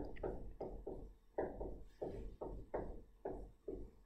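Marker writing on a board: a run of short taps and strokes, about two to three a second, as figures are written out.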